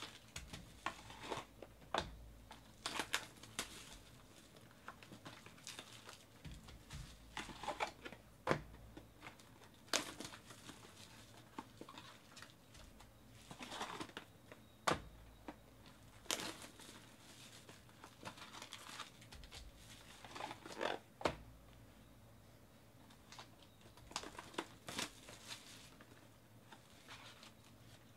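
Clear plastic shrink-wrap crinkling and tearing as it is stripped off cardboard trading-card boxes. The boxes are handled and set down, giving irregular crackles and a few sharp taps.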